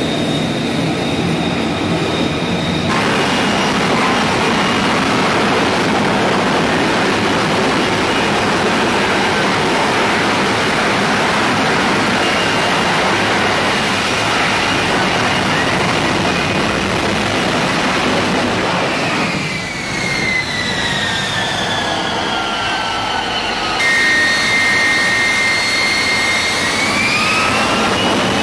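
F-35B Lightning II jet engine running loud and steady during short-takeoff/vertical-landing flight, including hovering over the deck. The sound changes abruptly a few times. In the second half a whine falls steadily in pitch, and a tone rises again near the end.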